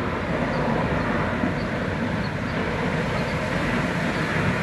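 Loud, steady industrial noise from heavy machinery at a scrap metal yard: a continuous rumbling drone with no breaks.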